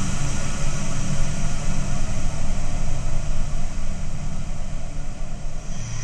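Electronically created dark ambient soundscape meant to evoke a blizzard, grinding metal and steam: a steady, dense rushing noise with a high hiss over a low drone, the drone fading about halfway through.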